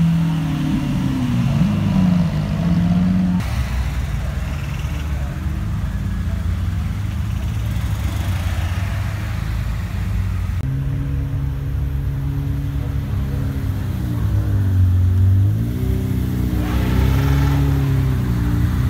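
Car engines idling with a few revs of the throttle, the pitch rising and falling twice about fourteen to sixteen seconds in. The engine sound changes abruptly about three and a half and eleven seconds in.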